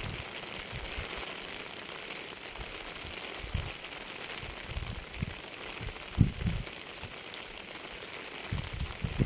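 Steady rain hiss, with short low thuds at irregular intervals, the loudest about six seconds in.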